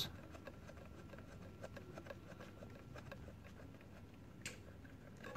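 Faint small clicks and ticks of fingers tightening a metal retaining clip on a panel meter's indicator, with one brief, slightly louder scrape near the end.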